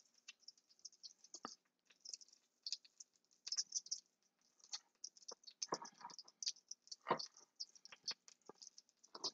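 Chef's knife chopping minced scallions on a wooden cutting board: quick, irregular taps of the blade on the board, with a few louder knocks in the second half.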